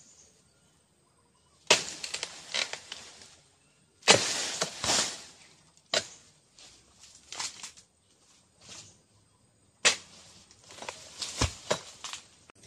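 Oil palm harvesting: four sharp strikes of a cutting tool into the palm, each followed by about a second of rustling and crackling fronds. Lighter clicks fall between them, and a heavy thud comes near the end.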